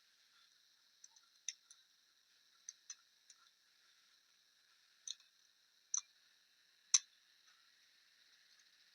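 Scattered light clicks and taps of small table fan parts and tools being handled as the fan motor is taken apart, about nine in all, the loudest near the end.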